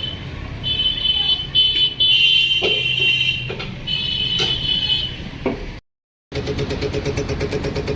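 Motorcycle tyre being fitted onto its rim, with high-pitched squeals in short stop-start stretches. After a brief cut there is a steady, rapidly pulsing run like a small engine or compressor.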